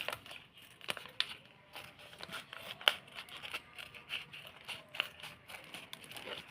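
Scissors snipping through paper with irregular sharp snips, paper rustling between them, as a paper blind bag is cut open along its marked line.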